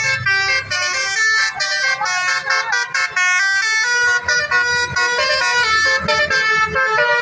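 A Basuri musical bus horn playing a fast tune of short, stepped horn notes.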